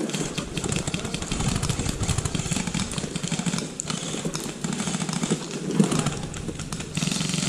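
Footsteps crunching through dry fallen leaves, with close rustling of clothing and gear: a dense, irregular crackle over a low rumble.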